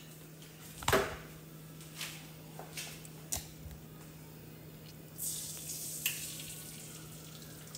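A knock and a few light clicks as a plastic mixing bowl is picked up and handled. About five seconds in, hot fat in a frying pan starts sizzling sharply as beaten egg mixture is poured in, then settles to a softer sizzle.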